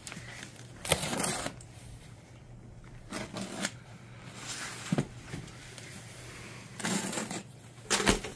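Box cutter slitting the packing tape on a cardboard shipping box in several short, separate strokes with a few sharp clicks, then the cardboard flaps being pulled open near the end.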